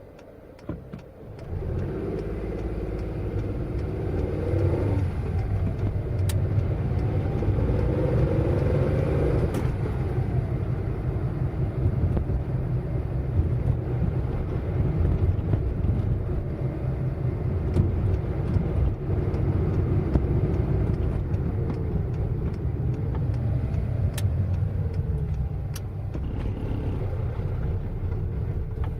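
Car driving fast: a steady low engine rumble that starts about a second in, its note climbing and dropping back several times as it revs, with a few sharp clicks.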